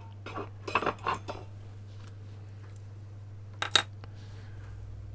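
Several light metallic clinks and taps as soldering tools are handled and set down: a quick run in the first second and a half, then a pair about three and a half seconds in. A low steady hum sits underneath.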